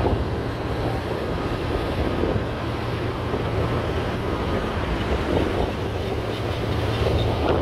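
A 4x4 driving along beach sand: a steady low engine drone with tyre noise, and wind buffeting the microphone.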